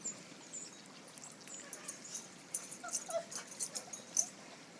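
A dog giving a few faint short whimpers and yips, over scuffling noises that come thickest in the second half.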